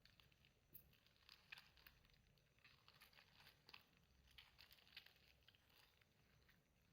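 Faint, irregular sticky clicks and crackles of soft clay slime being kneaded and pressed by hand.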